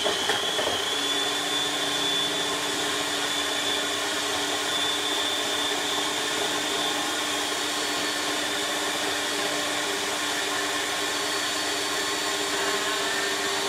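Food processor motor running steadily at full speed, blade churning frozen bananas, with a constant high whine over the motor's noise.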